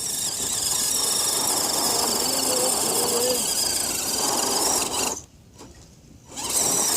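Electric motor and gear drive of an Axial SCX10 Deadbolt RC rock crawler whirring steadily as it climbs a dirt hill. About five seconds in, all sound drops out for a little over a second and then returns.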